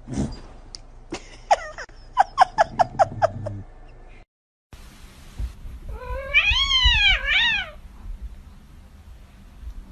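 Cats meowing: a quick run of about eight short, high mews, then after a brief gap a long drawn-out meow that rises and falls in pitch, followed at once by a shorter one.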